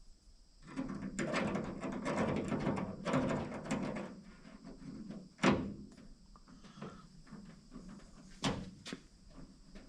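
Rattling and scraping of parts being handled for a few seconds, then two separate sharp knocks, like a panel or lid being shut.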